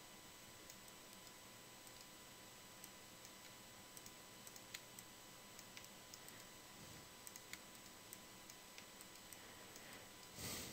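Near silence: room tone with faint, scattered clicks of a computer mouse and keyboard.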